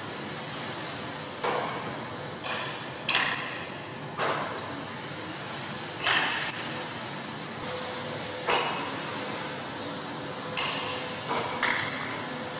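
A series of about nine short, sharp knocks at uneven intervals, each with a brief metallic ring, over a steady background hum.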